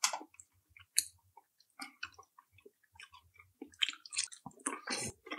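Chewing with scattered wet mouth clicks and smacks from people eating chicken sisig and chop suey. There is a sharper smack about a second in and a busier run of chewing sounds near the end.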